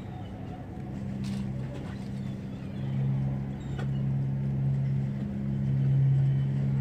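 Boat engine running with a steady low hum, growing louder about three seconds in and again near the end.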